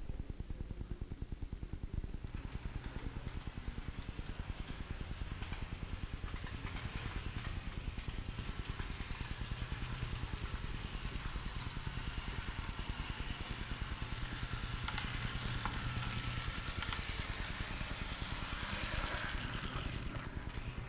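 Model train running on the layout's track: a rolling, hissing rattle that builds up gradually and fades near the end, over a steady low rumble.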